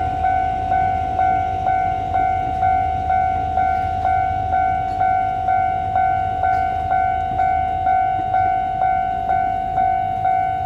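Level-crossing warning bell ringing steadily, pulsing about twice a second, over the low rumble of the EMU3000 trainset rolling slowly through the crossing.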